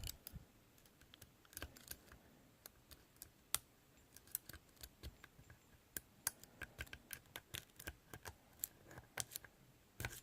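Faint, irregular small clicks of a lock pick working the pins of a 60 mm Mindy padlock's Pagoda-style core, held in a slight false set.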